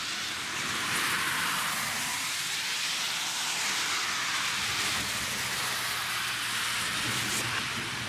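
A car passing on a wet road, its tyres hissing on the wet surface, the hiss swelling and fading as it goes by.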